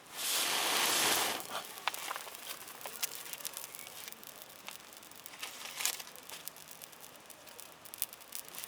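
A rustle for about a second, then faint scattered clicks and crackles.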